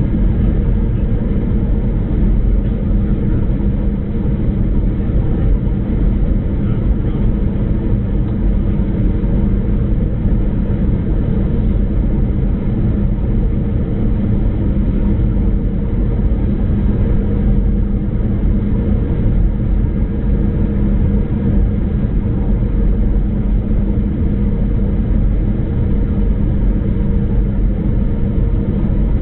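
Steady cabin noise of an Airbus A319 on final approach: an even rumble of engines and airflow with a low, steady hum.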